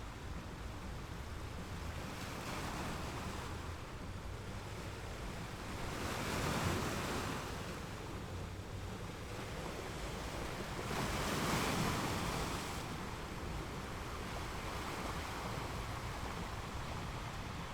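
Sea waves breaking on a rocky shore, a steady wash of surf with two larger waves surging up and falling away, one about six seconds in and one about eleven seconds in.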